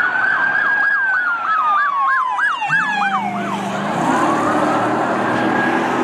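Police car siren: a rising wail that breaks into a fast yelp, sweeping up and down about four times a second, then slows back into a wail. A low steady drone joins about halfway through.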